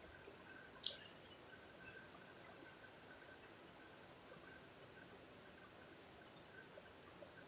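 Near silence: a faint steady hiss, with faint short high chirps now and then and a small click about a second in.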